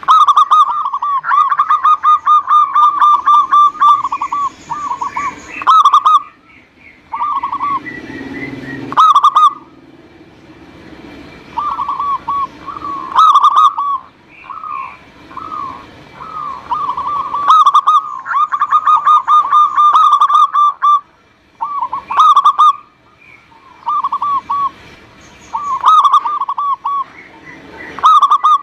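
Zebra doves (perkutut) cooing: fast trains of short, rolling coo notes repeated over and over with brief breaks, and sharp high notes cutting in about every four seconds. It is a lure call, used to set caged perkutut calling.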